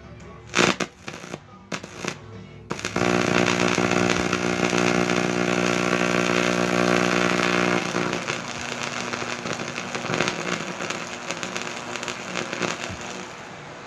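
High-voltage arc from a microwave oven transformer burning into a shaded-pole fan: several sharp cracks, then a loud steady electrical buzz from about three seconds in that turns into rougher crackling and cuts off shortly before the end.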